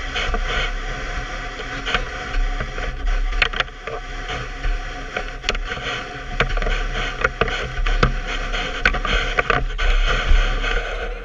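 Handling noise from a camera mounted on a surfboard being carried: frequent small knocks and scrapes over a steady rumble and hiss.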